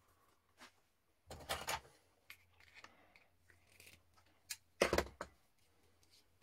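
Hand-tool handling noises: small metal clicks and two short scraping rustles, about a second and a half in and about five seconds in, as the collet nut of a flexible-shaft rotary-tool handpiece is worked by hand and with pliers to change the bit.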